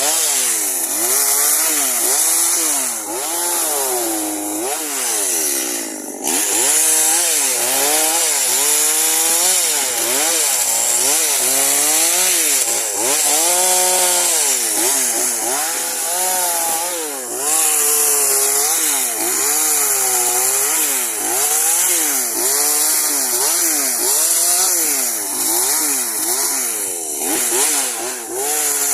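Chainsaw cutting pine branches, its engine pitch rising and falling over and over as it revs up and bogs down under load in the wood.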